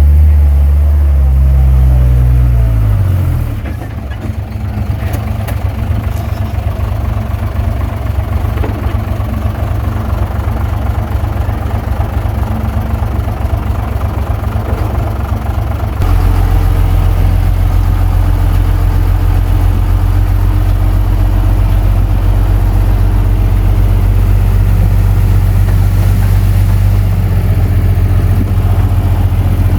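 Komatsu D21P bulldozer's diesel engine running under load, its pitch rising and falling for the first few seconds, then running steadily and growing louder about halfway through.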